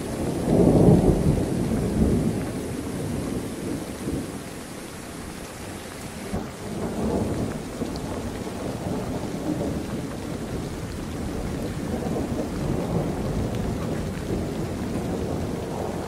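Strong wind gusting through oil palm fronds: a rushing rumble that swells about a second in, again around the middle, and once more near the end.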